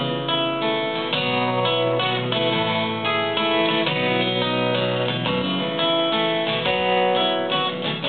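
Solo acoustic guitar strummed in a steady rhythm, an instrumental passage of a song.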